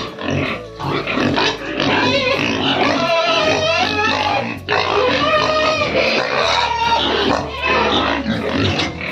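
Pigs grunting and squealing, with background music playing over them.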